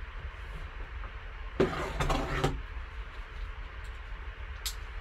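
Cardboard trading-card box being handled and opened by gloved hands: the box rubs and scrapes for about a second near the middle, then one sharp click shortly before the end.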